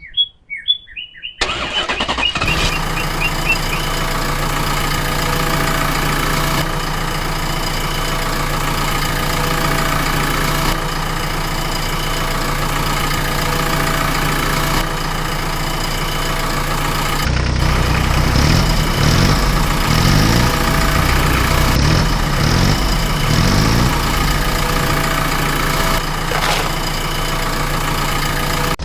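A vehicle engine starts with a few short sputters and then runs steadily at idle. From about two-thirds of the way through it sounds heavier, its pitch rising and falling again and again as it is revved.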